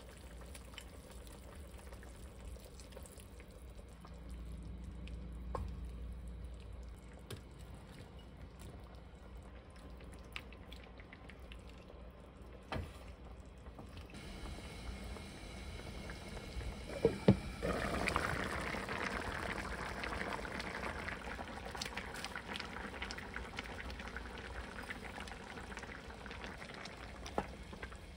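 Pork and gochujang stew simmering in a pan with a soft bubbling. About two-thirds of the way through come a couple of sharp knocks, and then the bubbling grows louder as tofu and zucchini are stirred in with a wooden spoon.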